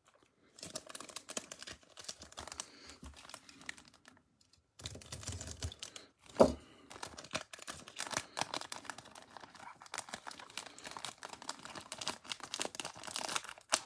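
Foil wrapper of a four-card Bowman Platinum pack crinkling and tearing as it is worked open by hand, with cards rustling. There is a short pause about four seconds in and one louder rustle a couple of seconds later.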